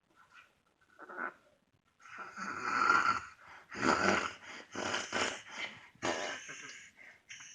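A child snoring in sleep: faint short breaths at first, then from about two seconds in a run of loud snores about a second long each, with short gaps between them. This is the snoring of a child with obstructive sleep apnea.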